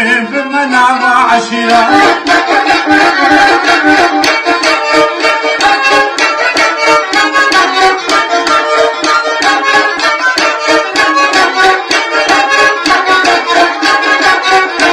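Kamancheh, a bowed spike fiddle, playing a fast instrumental run of quick, rapidly bowed notes. A man's sung phrase over it ends about a second in.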